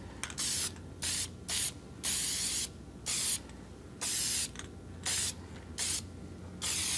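Aerosol spray can of primer hissing in about nine short bursts, most under half a second and one longer burst about two seconds in, as a first coat of primer is laid down in light passes.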